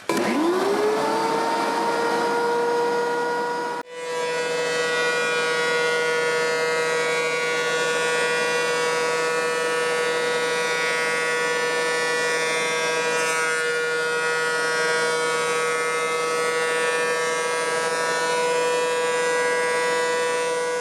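DeWalt DW735X thickness planer's motor and three-knife cutterhead starting up, its whine rising to full speed in about a second, then running at a steady high-pitched whine. The sound drops out briefly about four seconds in.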